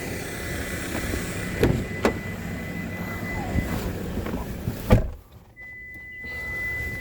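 Steady motor-vehicle running noise with a few sharp knocks, ending in a loud thump about five seconds in, after which it is much quieter.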